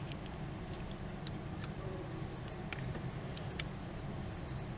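Scattered light metallic clicks from tools working on a compressed engine valve spring and its keepers, over a steady low hum.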